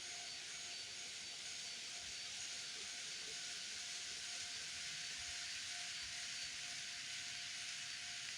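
An N-scale model train running on the layout's track: a steady whirring hiss with a thin steady hum.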